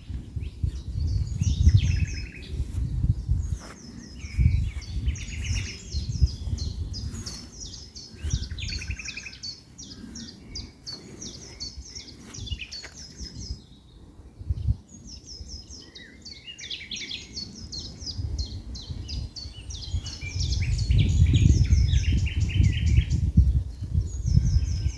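Songbirds singing outdoors: rapid trills and runs of repeated notes, several phrases overlapping, over a low rumbling noise that rises and falls and is louder near the end.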